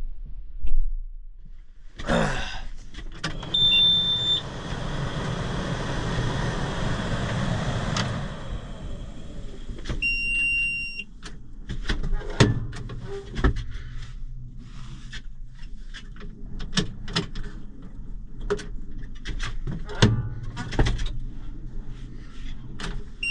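Clicks and knocks in a tractor cab, with an electronic warning beep held for about a second about ten seconds in and again at the very end. Earlier, a few seconds of steady hiss over a low rumble.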